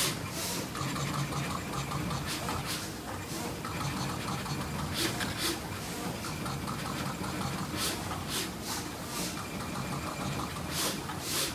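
Mycronic MY200LX-14 pick-and-place machine running: a steady mechanical hum broken by about a dozen short, sharp hisses at uneven intervals.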